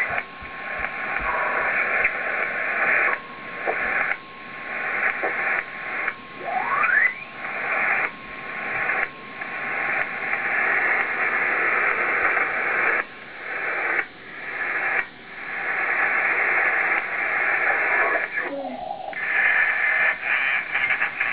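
Yaesu FT-857 transceiver's loudspeaker giving shortwave static and band noise as it is tuned across the 20- and 40-metre amateur bands. The hiss dips in and out repeatedly, with tuning whistles gliding in pitch: one rising about seven seconds in and a short falling one near the end.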